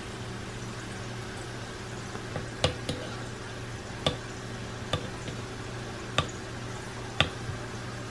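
A knife slicing a banana, the blade tapping sharply against the surface beneath with each cut, six or seven taps about a second apart, over a steady low hum.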